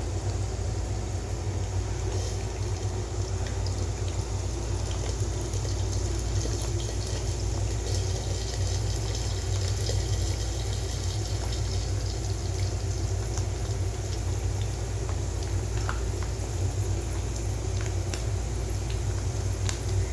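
Steady rain falling, with a constant low hum underneath and scattered faint drips.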